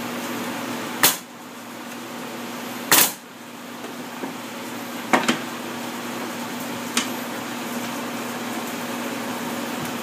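Pneumatic nail gun firing sharp shots into the wooden parts of a Langstroth hive frame, nailing the top bar to the end bars: single shots about one and three seconds in, two in quick succession about five seconds in, and a lighter one near seven seconds. A steady hum runs underneath.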